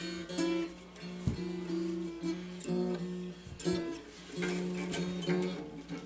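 A small acoustic guitar strummed by a child, chords and held notes coming at an uneven pace.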